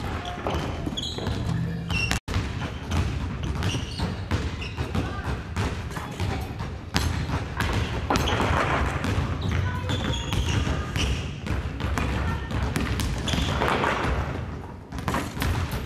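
Basketballs bouncing and thudding on a wooden gym floor, many knocks in irregular succession, with children's voices in the background.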